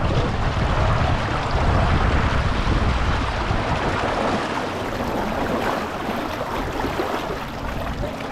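Water washing and splashing along a small sailboat's hull, with wind buffeting the microphone in a low rumble that eases a little past halfway.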